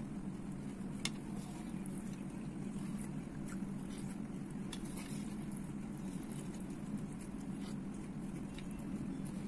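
Someone eating chocolate cereal in milk by the spoonful: scattered small clicks and chewing mouth sounds, the sharpest about a second in, over a steady low hum.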